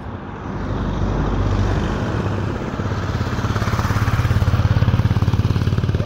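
Motor vehicle engine running close by with a fast, even pulsing, getting louder and slightly higher in pitch from about three seconds in.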